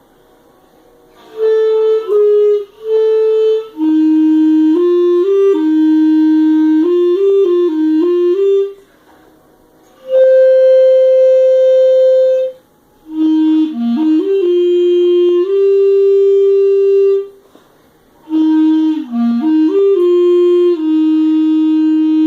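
Clarinet playing a slow melody in four or five short phrases with pauses between them, including one long held note near the middle.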